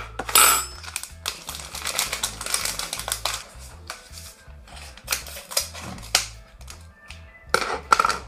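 Paper packet of mug-cake mix being handled and torn open: crinkling with a run of sharp clicks and taps, the loudest about half a second in and near the end. Background music plays underneath.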